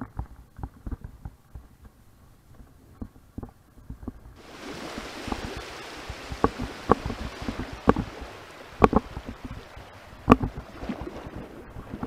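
Cabin and road noise of a moving vehicle as picked up by a dashcam: a low rumble with scattered sharp knocks and rattles from bumps in the road, joined about four seconds in by a steady rushing hiss.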